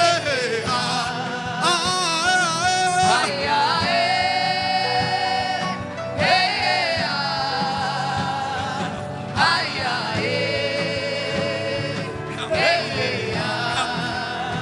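Gospel worship music: a solo voice sings long, drawn-out notes with a wavering vibrato, a new phrase every few seconds, over a steady instrumental backing.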